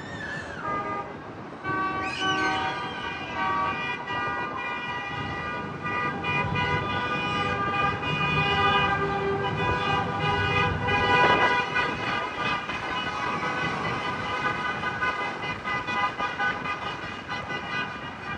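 Vehicle horns honking steadily and without let-up from about two seconds in. A short sound rising and falling in pitch comes just before them.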